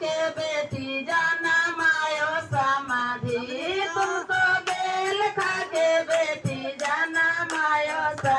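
A high female voice singing a traditional wedding song, with long held notes that waver in pitch.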